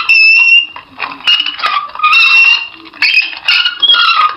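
A run of loud, high-pitched creaks: about half a dozen drawn-out squeals in quick succession, each a few tenths of a second long.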